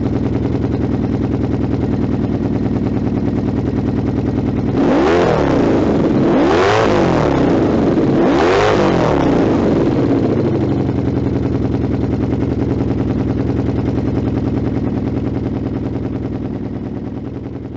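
Honda VF750 V4 idling through a SuperTrapp silencer with an open end cap, then blipped three times in quick succession, each rev rising and falling in pitch, before settling back to a steady idle that fades near the end.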